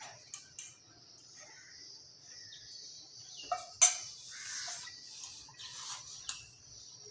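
Eating sounds: a spoon knocking sharply against a stainless steel bowl just before four seconds in, with soft slurping and chewing of hot chicken around it. A steady high insect trill, like crickets, runs underneath.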